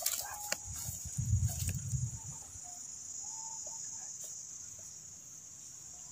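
Steady high-pitched insect trilling, crickets or similar, from the surrounding grass. Low bumps and rustling from handling in the first two seconds, and a few faint short calls near the middle.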